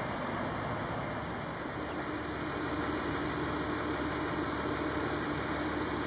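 Fire engine's diesel engine idling: a steady rumble, with a steady low hum joining about two seconds in.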